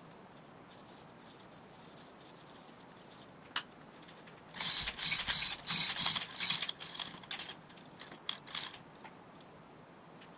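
Chain hoist lowering a transmission: a fast run of loud ratcheting, rattling clicks lasting about two and a half seconds, then a few lighter clicks.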